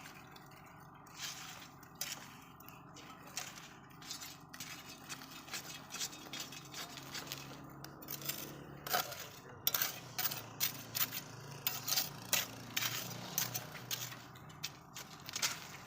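Metal tools clinking and scraping in a string of sharp, irregular knocks, sparse at first and busier from about halfway through, over a faint low hum.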